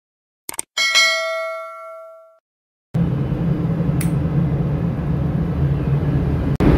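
Two quick clicks, then a bell-like ding sound effect that rings and fades away over about a second and a half. About three seconds in, a steady low rumble of machinery noise starts and runs on.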